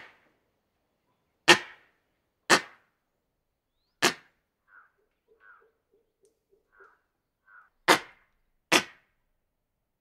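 Hanuman langurs giving alarm barks: five loud, sharp single barks at uneven intervals, with a run of softer, shorter calls between the fourth and fifth. Langur alarm barks warn the troop of a predator.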